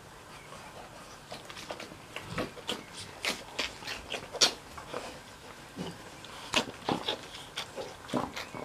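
Mastiff puppies nursing from their mother: an irregular run of short wet sucking and smacking clicks that starts about a second in.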